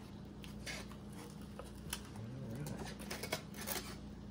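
Cardboard shipping-box flaps being opened and a styrofoam lid lifted out, heard as scattered light scrapes, rustles and taps.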